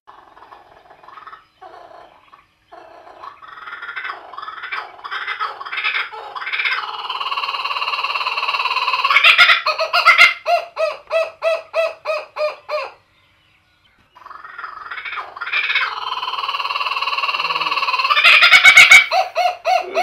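Laughing kookaburra calling: a low chuckle that builds into loud laughter, then breaks into a run of evenly spaced 'ha' notes, about two and a half a second, that stops suddenly. After a pause of about a second the call starts again and builds to a second loud peak.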